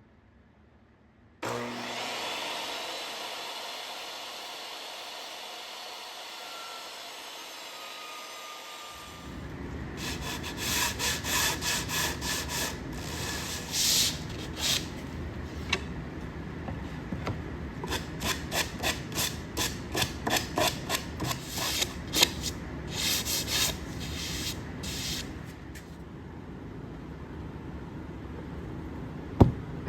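Wood being worked by hand in a workshop. A steady hiss starts abruptly and slowly fades. From about nine seconds in comes a long run of quick, even rubbing strokes on wood, broken by short pauses, much like hand sawing or filing.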